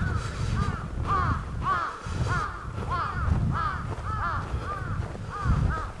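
Crows cawing in a long run of short caws, two or three a second, over a low rumble.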